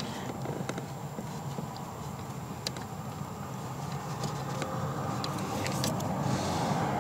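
Steady low background hum with a few faint, light clicks and rustles as hands handle the steering shaft and pedal bracket under the dashboard.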